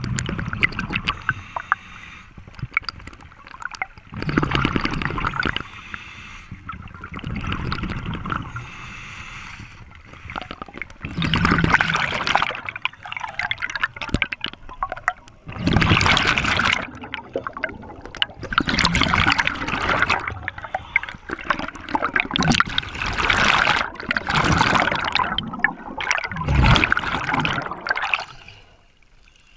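A scuba diver breathing through a regulator underwater: repeated bursts of exhaled bubbles gurgling past, one every few seconds, with quieter inhalations between.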